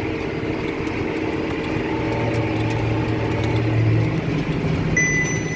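John Deere tractor's engine running steadily under load while the Krone 1290 large square baler works behind it, with a pulsing low hum that swells and fades. Near the end a single steady electronic beep sounds for about a second.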